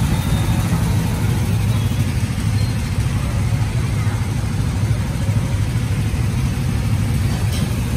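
Go-kart engines idling in a steady low drone.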